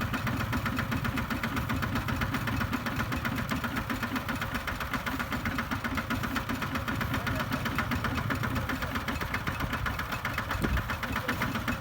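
Single-cylinder diesel engine of a two-wheel walking tractor running steadily with a fast, even chugging knock.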